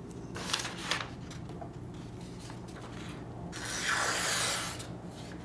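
Ka-Bar combat knife blade slicing through a sheet of scrap paper in one stroke about three and a half seconds in, a sharpness test. A couple of light clicks come first as the knife and paper are picked up.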